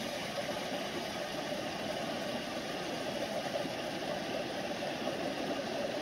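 Steady rush of a mountain stream flowing over rocks.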